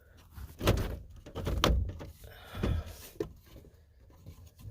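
Part of a 1992 Ford pickup's steering column being yanked on by hand, giving three dull thunks about a second apart and a smaller knock after, as the part shifts.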